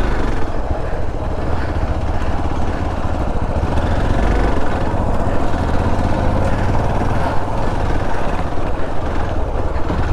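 Motorcycle engine running with a steady low rumble of road and wind noise.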